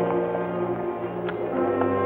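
Orchestral film score with brass holding sustained chords that move to new notes about one and a half seconds in.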